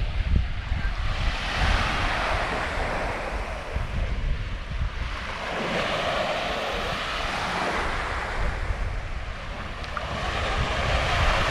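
Small surf waves washing up on the beach in three swells of hiss about four seconds apart, with wind rumbling on the microphone.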